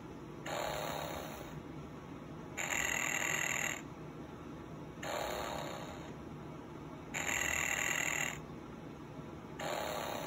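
Snoring Disney Goofy plush toy playing its recorded snore through its small built-in speaker: a breathy sound repeating about every two seconds, every other one louder, five times.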